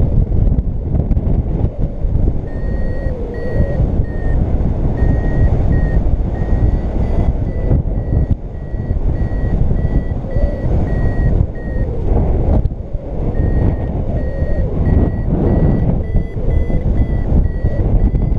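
Paragliding variometer beeping in lift: a chain of short high beeps, their pitch creeping slightly higher, starting about two seconds in with a short break near the middle. Loud wind rumble on the camera microphone runs under the beeps.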